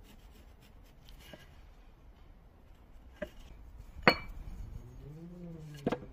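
Steel axe head knocking and clinking as it is handled on the workbench: a faint knock about three seconds in, one sharp clink with a short ring about a second later, and a double knock near the end. A faint low hum rises and falls in pitch in the second half.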